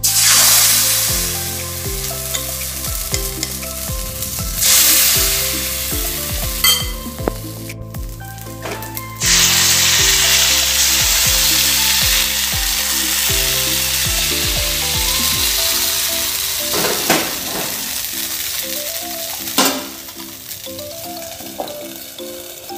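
Rice appam batter sizzling loudly in a hot appam pan. The hiss surges several times, and there are a few sharp knocks near the end.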